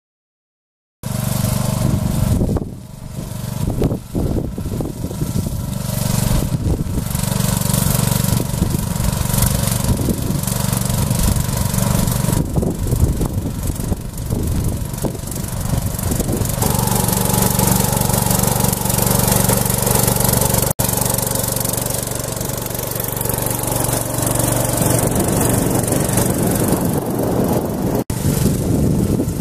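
DAKR Panter FD-5 tractor's engine running steadily while ploughing. It starts about a second in and holds a constant low drone.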